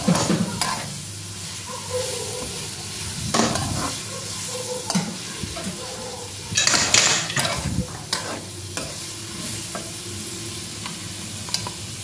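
Diced potatoes and capsicum frying in a metal pan with a steady sizzle, as a metal spoon stirs them and scrapes and clinks against the pan. The loudest scraping comes about seven seconds in.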